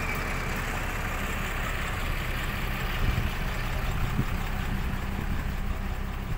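Heavy truck engine idling steadily, with a few brief low thumps about three and four seconds in.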